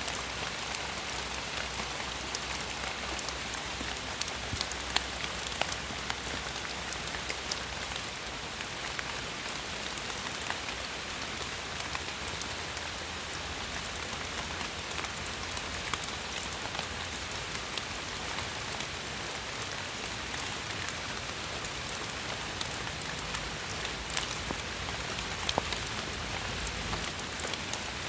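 Steady rain falling on forest foliage: an even hiss of rain with many sharp ticks of drops striking nearby leaves.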